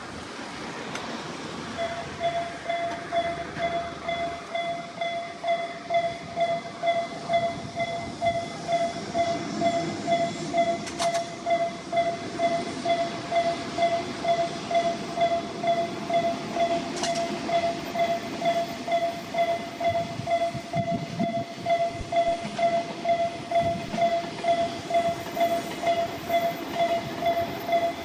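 Japanese railway level-crossing electronic warning alarm starting up about two seconds in and ringing a steady pulsed tone, roughly two strikes a second, with a weak, unenthusiastic sound; it signals an approaching train. Train running noise rumbles underneath.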